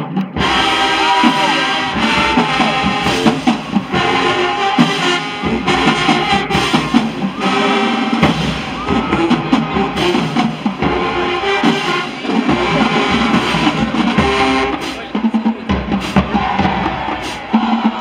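High school marching band playing its field show: trumpets and sousaphones over bass drums, snare drums and crash cymbals, in loud punchy phrases.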